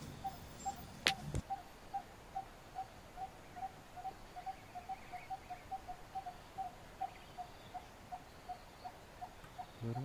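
Coppersmith barbet calling its repeated 'tuk-tuk-tuk': a long series of short notes at one pitch, about two to three a second, steady throughout. A single sharp click about a second in.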